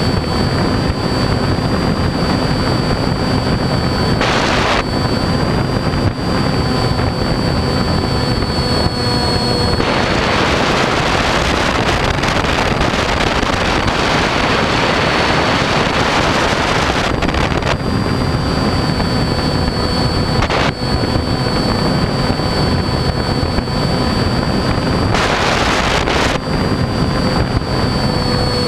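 RC airplane's motor and propeller running at a steady pitch, recorded from the onboard camera, with wind rushing over the microphone. The wind rush swells loud for about seven seconds in the middle, and in two shorter gusts before and after.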